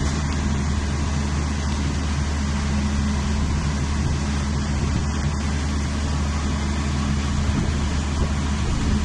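Car engine running steadily, a low even hum, with a constant hiss over it.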